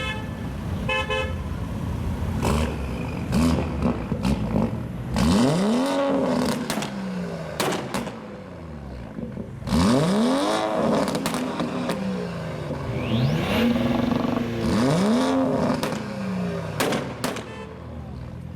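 Tuned performance car engines revved hard several times, the pitch sweeping up and falling back, with sharp exhaust pops and bangs scattered through. A car horn toots briefly about a second in.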